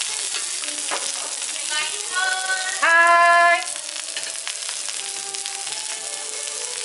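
Vegetables steaming and sizzling on a dome-shaped cast-iron jingisukan (Genghis Khan) grill pan, a steady hiss throughout. About two seconds in come two short steady pitched notes, the second louder.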